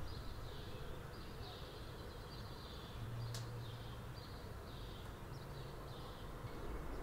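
Faint outdoor ambience: short, high-pitched chirps or buzzes repeating irregularly about every half second, over a low steady hum, with a single click about three seconds in.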